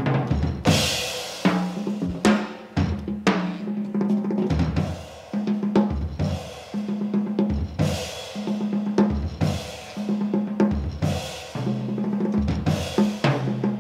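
Jazz drum kit played busily, with snare and bass-drum hits and washing cymbals, over a double bass holding low notes that change every second or so.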